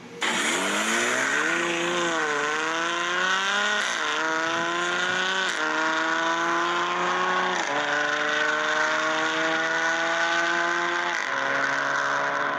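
Simulated supercar engine sound from a speedometer app, accelerating hard through the gears. The pitch climbs steadily and drops back at each of five upshifts.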